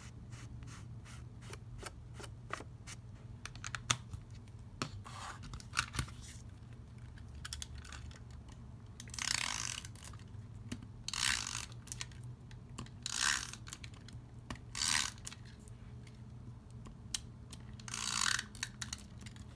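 Paper and card being worked by hand at a craft table: light clicks and taps of handling for the first several seconds, then five short rough swishes about two seconds apart.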